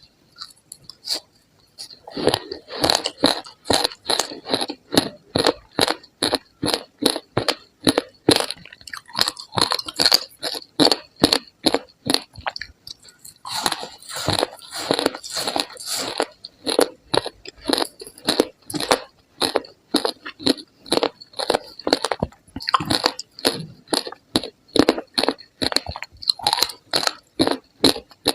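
Ice being chewed close to the microphone: a rapid, steady run of sharp crunches, about three a second, that starts about two seconds in.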